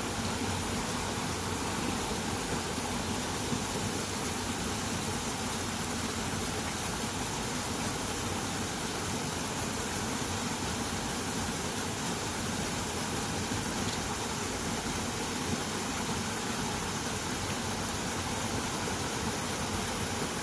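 Steady rush of small waterfalls spilling into a shallow rocky pool: an even, unbroken noise.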